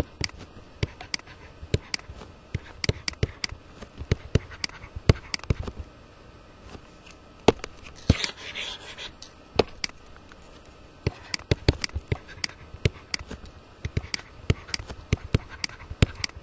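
Pen stylus tapping and scraping on a tablet surface while handwriting, in irregular clusters of sharp clicks with short pauses between strokes.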